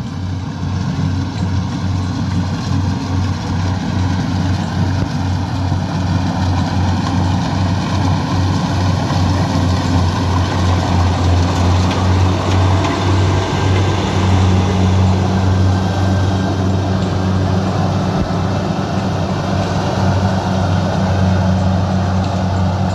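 Rice combine harvester's engine running with a steady, loud drone while it cuts the standing rice. A second, higher hum joins about two-thirds of the way through.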